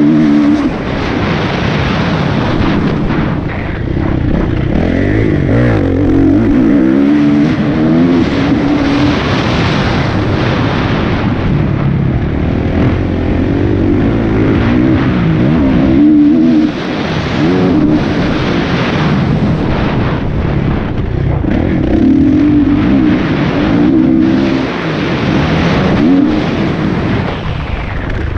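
Kawasaki motocross bike engine heard up close from the bike, revving hard, its pitch rising and falling again and again through the lap.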